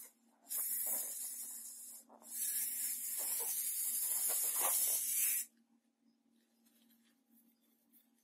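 Air hissing out of a rubber balloon snipped open with scissors, in two long bursts: the first about a second and a half long, the second about three seconds, ending suddenly a little past halfway.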